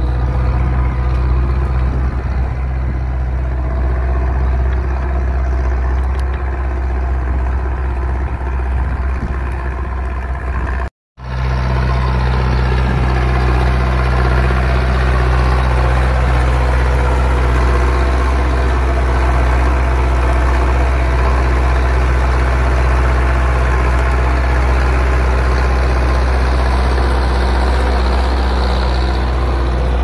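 Zetor 6211 tractor's diesel engine running steadily under load while pulling a mounted plough through the soil. The sound cuts out completely for a moment about ten seconds in, then carries on as before.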